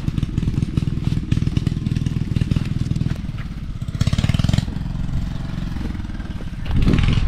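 Engine of a kuliglig, a two-wheel walking hand tractor, running steadily with a fast chugging beat, briefly louder about four seconds in.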